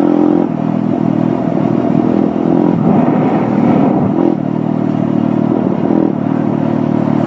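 Dirt bike engine running steadily while riding along, heard from on the bike, its pitch holding fairly level with small changes in throttle.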